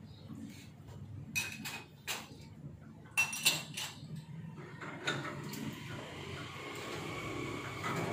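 A few sharp clinks and knocks of hard objects, one ringing briefly, then from about five seconds in a steady hiss of water that slowly grows louder.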